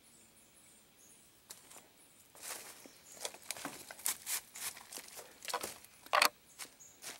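Footsteps crunching through dry leaves and brushing through undergrowth: irregular crackles that start about two seconds in, with the sharpest snap about six seconds in. Faint high chirping in the quiet opening.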